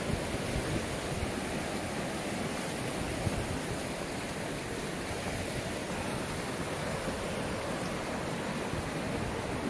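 Creek water rushing over rocks and through rapids: a steady gushing.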